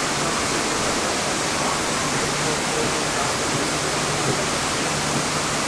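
Steady rushing of falling water from a waterfall.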